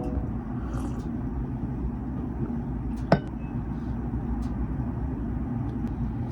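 Steady low rumbling background noise with one sharp click about three seconds in.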